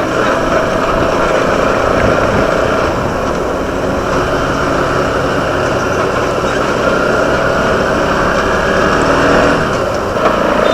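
Motorcycle running at a steady road speed: an even engine hum under road and wind noise.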